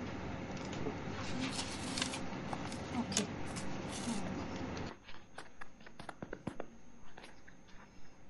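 Classroom room noise with paper rustling and scattered small clicks and taps. The background hum drops away suddenly about five seconds in, leaving isolated clicks and a faint steady high tone.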